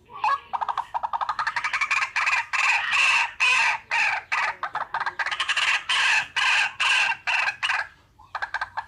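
Waterhen call: a long run of rapid, harsh, repeated notes that swell into loud pulses about twice a second, then break off about eight seconds in.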